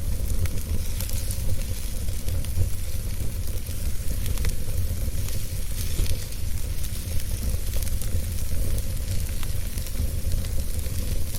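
Wood fire burning in a fireplace: a steady low rumble and hiss with small scattered crackles.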